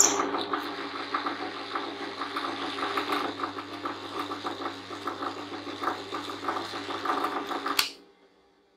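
Benchtop drill press motor running with a steady hum and a fast rattle. Near the end, after a click, it stops abruptly.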